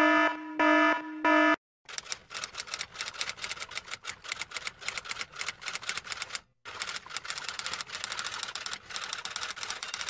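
An electronic alarm beeping, three short pitched beeps about half a second apart, then a typewriter's keys clacking rapidly and unevenly, with a brief break about six and a half seconds in.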